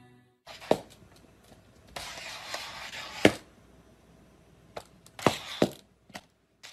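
A few scattered light knocks and thuds, with a short patch of scraping hiss, from a cat moving about in a plastic cone collar on a tiled floor and bumping the cone against a glass panel.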